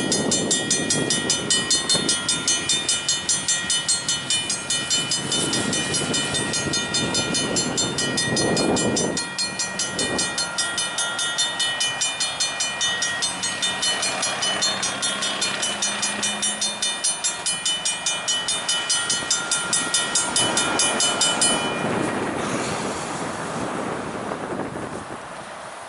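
Single diesel locomotive rolling over a road grade crossing, its wheels clicking over the rail joints, while the crossing bell rings rapidly and evenly. The bell cuts off suddenly about four seconds before the end, and the locomotive's sound fades away.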